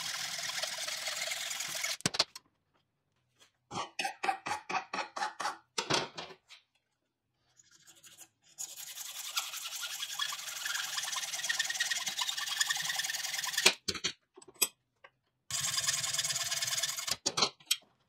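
Hacksaw cutting through a glued stack of brass lock levers held in a vise: a rasping in spells, with a run of short quick strokes a few seconds in, a long spell of sawing in the middle and a shorter one near the end.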